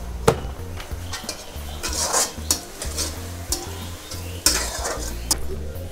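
Onions and spices sizzling in hot oil in a wok, with a spatula stirring and scraping in two surges, about two seconds in and again near the end, and a few light knocks of utensils.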